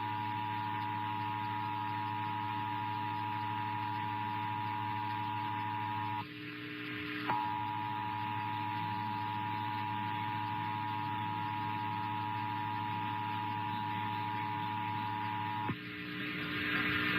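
Emergency Alert System attention signal: a steady two-tone alert just under 1 kHz, with a low hum beneath it. It drops out for about a second some six seconds in, resumes, and cuts off near the end, leaving rising hiss.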